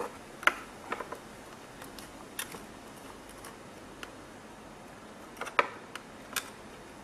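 Irregular light clicks and ticks as a soldering iron tip and copper solder wick are pressed and moved over a circuit board's solder pads during desoldering. The sharpest clicks come about half a second in and about five and a half seconds in.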